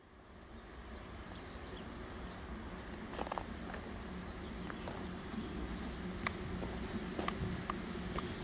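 A VL10 DC electric freight locomotive approaches with its freight train: a low rumble with a steady hum, growing slowly louder. Short, sharp clicks and chirps come scattered through it from about three seconds in.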